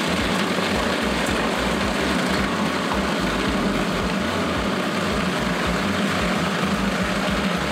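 Electric food processor motor running continuously, steady and loud, as it blends a thick cream-cheese filling.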